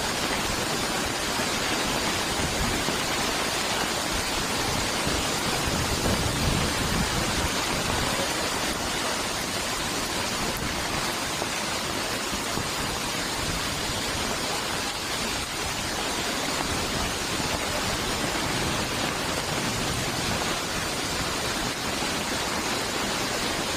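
Torrential rain in strong wind: a dense, steady hiss of heavy rain pouring down.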